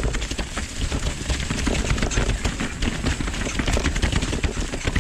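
Mountain bike moving down a rough, wet trail: quick rattles and clicks from the bike and ground over a steady low rumble on the GoPro microphone.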